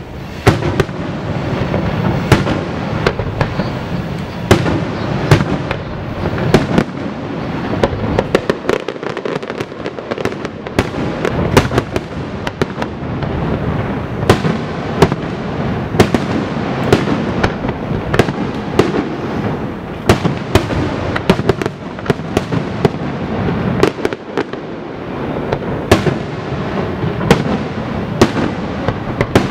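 Fireworks display: a dense, unbroken run of sharp bangs and crackling, several reports a second, over a steady rumble.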